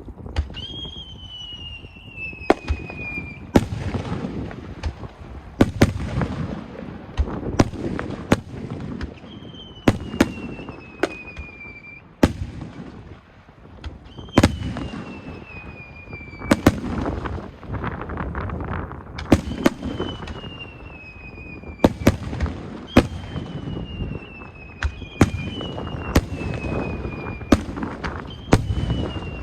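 Fireworks display: whistling shells go up one after another, each whistle falling in pitch over a second or two, amid sharp bursting bangs and rumbling booms.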